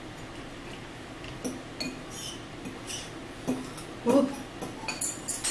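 Scattered small clicks and clinks of a fork against a bowl and cups as people eat at a table, with a brief vocal sound about four seconds in.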